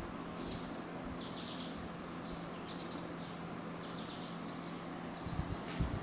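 A 1995 Lakewood Model 223 20-inch box fan running, a steady motor hum under the rush of air from its blades. Short high chirps come about once a second, and a few low thumps are heard near the end.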